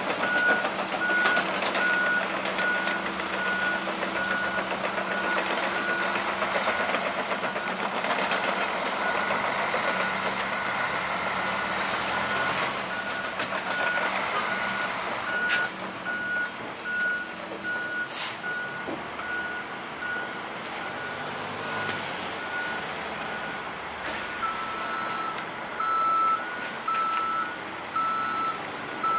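Reversing alarm on construction equipment beeping in a steady, even rhythm over the running of heavy machinery. Near the end a second backup beeper with a slightly lower pitch joins in. A single sharp click is heard around two-thirds of the way through.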